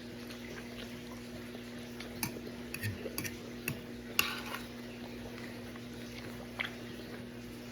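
Cutlery clinking against a cooking pot several times, the loudest clink about four seconds in, over a steady low hum.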